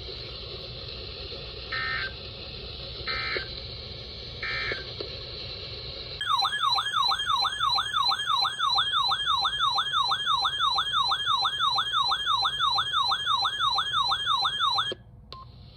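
Emergency Alert System tones: three short bursts of SAME digital data tones, then a warbling alert tone that sweeps up and down about three times a second for roughly nine seconds and cuts off suddenly.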